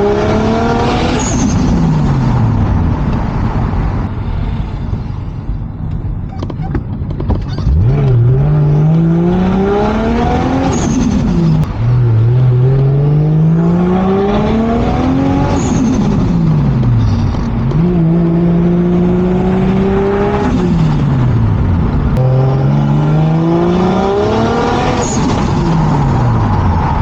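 Turbocharged Toyota Mark II engine under way through a short-geared manual gearbox: the note climbs in pitch through each gear and drops back at each shift or lift-off, about five times. There is a short lull and a brief steady cruise between the pulls.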